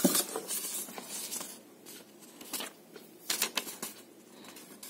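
Paper leaflets and cardboard packaging rustling and crackling as they are handled, in a few short spells.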